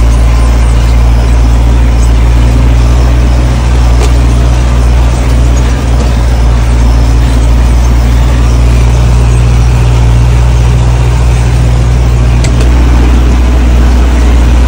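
Tractor diesel engine running steadily while driving, heard from inside the cab as an even low drone.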